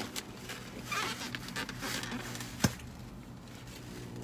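Close-up chewing and wet mouth noises from eating a juicy burger, with a single sharp click about two and a half seconds in.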